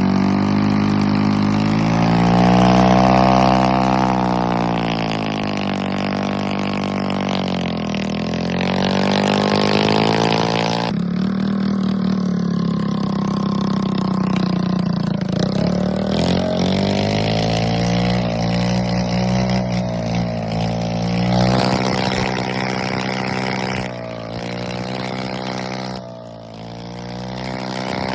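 Kymco Agility 50 scooter's 50 cc engine running with no exhaust fitted, revved up and down again and again. There are sharper drops in revs near the end.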